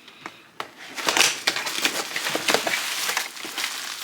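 Packaging being handled as a box is opened: a few light taps, then from about a second in a dense crinkling and rustling that runs for nearly three seconds.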